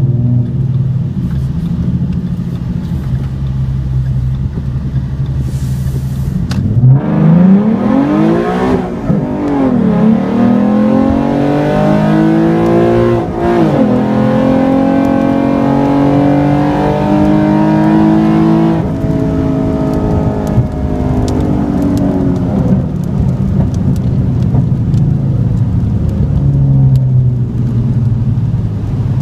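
A 2014 Ford Mustang's 3.7-litre V6 on a ghost cam tune, with long-tube headers, H-pipe and muffler delete, heard from inside the cabin. It idles, then about seven seconds in it launches hard and revs up through two quick upshifts. About twelve seconds later the driver lifts off and it falls back to a steady cruising drone. Faint ticks of rain on the car can be heard near the end.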